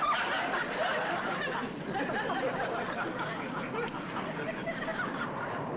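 Audience laughter: many people chuckling and laughing together without a break, with no single voice standing out.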